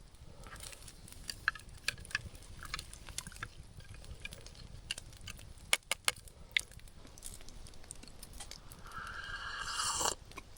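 Scattered light clinks of camp cookware as a hot Tang drink is readied, then a long slurping sip that rises for about a second near the end and cuts off.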